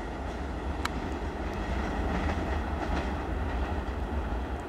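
The rear wagons of a RO-RO freight train carrying lorries roll away along the track: a steady low rumble of wheels on rails, with a sharp click about a second in.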